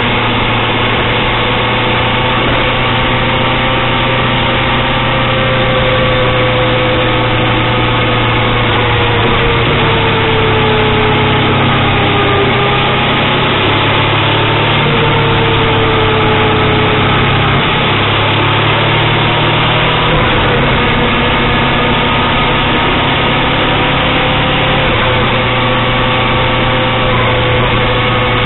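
Motorcycle engine running steadily on the move over constant wind and road noise. Its pitch sinks slightly and then climbs back through the middle.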